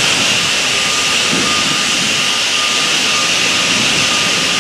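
Steady mechanical running noise of a truck-mounted hydraulic loader crane at work, with a faint high beep repeating about once a second.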